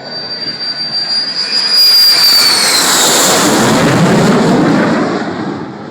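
F-16 fighter jet making a low flyby: a high turbine whine drops in pitch as the jet passes, then a loud jet roar with a deep rumble that fades near the end.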